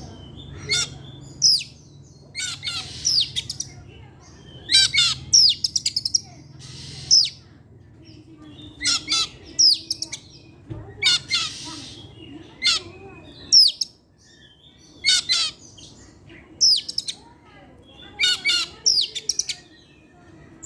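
Oriental magpie-robin (kacer) singing a continuous, varied song: short phrases of sharp falling whistles and fast trills, mixed with harsh noisy notes, separated by brief pauses.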